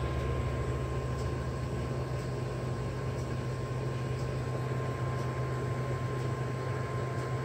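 A steady mechanical hum with an even hiss and a constant thin whine, unchanging throughout.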